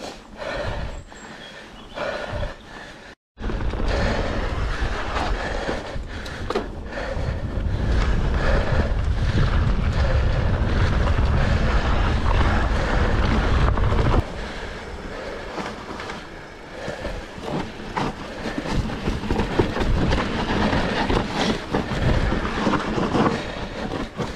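Mountain bike rolling along a leaf-covered dirt trail, with wind rumbling on the handlebar camera's microphone, tyres running over leaves and dirt, and the bike rattling and clicking over bumps. After a brief dropout a few seconds in, the wind rumble is heaviest until about halfway, then eases and leaves more of the rattling.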